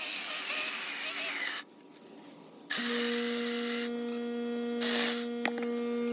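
Battery-powered 4-inch mini chainsaw cutting through small logs, running in spells: the cut stops for about a second, then the chain runs again with a steady motor hum, goes quieter, and cuts once more briefly near the end.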